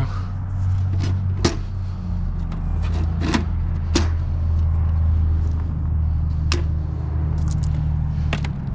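Sharp clicks and snaps, about six spread irregularly, of cutters working on heavy insulated wire, over a steady low engine-like hum.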